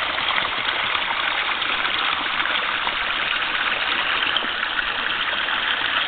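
Steady rushing noise of running water.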